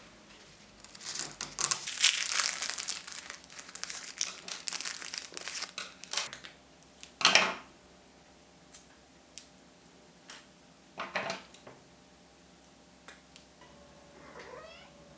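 Crinkling and rustling of a thin wrapping material, dense for several seconds, then a loud rustle and a few scattered short crackles.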